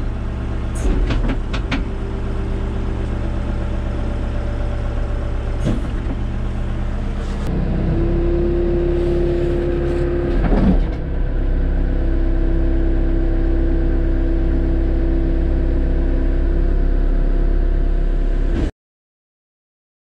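Diesel engines of Fiat backhoe loaders (a Fiat Hitachi FB100, then a Fiat Kobelco B100) held at about 1000 rpm, heard from inside the cab during a front-loader lift test. A few knocks sound in the first seconds, and after the change a steady hydraulic whine rides over the engine, with a clunk near the middle.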